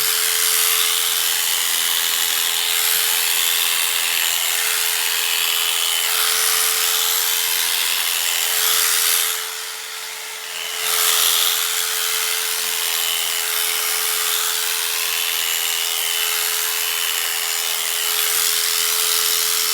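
Electric sheep-shearing clippers running with a steady whine as they cut through a fleece, the loudness dipping briefly about halfway through. The wool has not yet lifted from the skin, so the clippers are labouring as they push through it.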